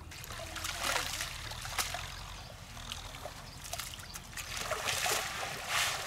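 Water splashing and trickling as a fishing net is hauled through shallow, muddy pond water, with a few louder splashes, the biggest about a second in and near the end.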